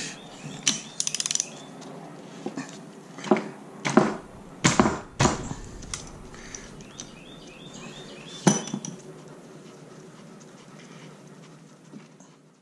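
Metal hand tools clicking and clinking while a spark plug is removed from a Troy-Bilt 4-cycle string trimmer with a socket and ratchet. A quick run of ratchet clicks comes about a second in, then a few separate sharp knocks and clinks as the socket, plug and tools are handled.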